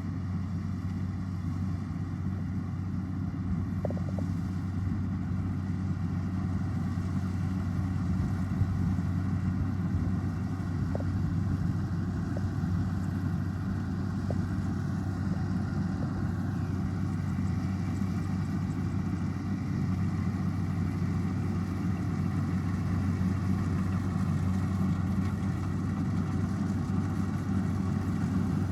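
Kubota DC105X combine harvester's diesel engine running steadily, a continuous low hum.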